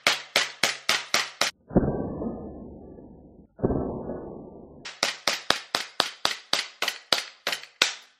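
Green-gas Glock 17 airsoft pistol firing rapid semi-automatic shots, sharp cracks about four a second, as the magazine is emptied. Two longer, duller decaying sounds fall between a string of about seven shots and a string of about a dozen more. The shooter thinks the gun was running out of green gas near the end.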